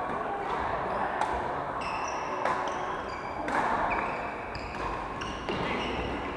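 Badminton play on a wooden court: a few sharp cracks of rackets striking shuttlecocks, about a second apart, among short high squeaks of sports shoes on the floor.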